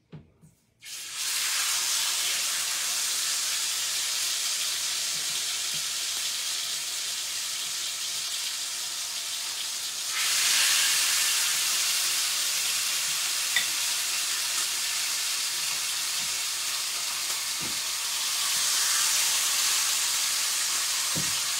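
Coated chicken pieces sizzling in a hot stainless steel pan as they are laid in. The sizzle starts suddenly about a second in and gets louder about ten seconds in as another piece goes into the pan.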